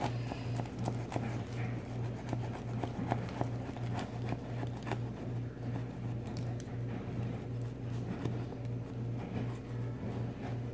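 Utility knife blade scratching and cutting through a hardened paper clay shell, with scattered small scrapes and clicks. A steady low hum runs underneath.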